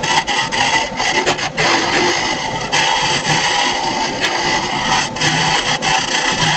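A wood lathe running while an elbow hollowing tool cuts away wood inside a spinning laminated cookie jar blank: a steady scraping hiss over the lathe's hum, briefly easing about a second and a half in and again about five seconds in.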